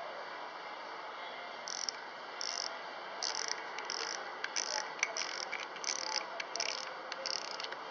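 Spinning reel's drag clicker ratcheting as the spool is twisted by hand, in about ten short bursts of rapid clicking roughly two-thirds of a second apart, starting a second and a half in.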